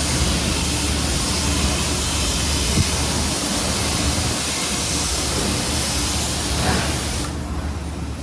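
Steady rushing road and wind noise of a vehicle on the move, with a low drone underneath. The high hiss drops away sharply about seven seconds in.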